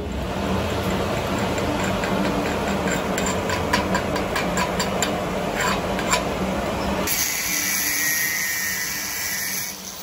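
A steel wire brush scrubbed back and forth over a weld bead on steel plate, with many sharp scraping strokes. About seven seconds in it gives way to an angle grinder's disc grinding the end of the weld, a bright hissing grind that stops just before the end.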